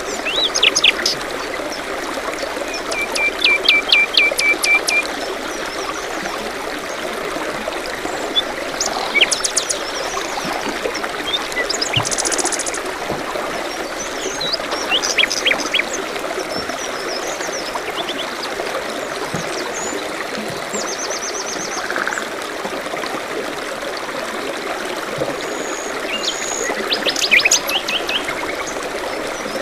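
A small stream trickling steadily, with several birds calling and singing over it in short phrases of quick repeated chirps and notes.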